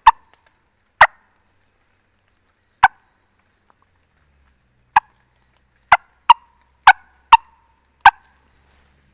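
Sharp, loud turkey clucks from a hunter's turkey call, nine short single notes. They come a second or two apart at first, then faster and more irregular near the end, like cutting.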